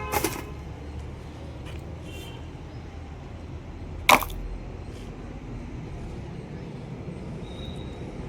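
Two sharp clicks, one at the start and a louder one about four seconds in, with a couple of faint ticks between, over a steady low rumble.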